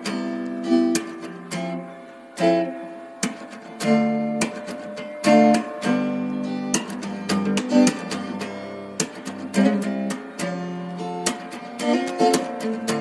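Background music: acoustic guitar strumming and picking, with frequent sharp plucked notes.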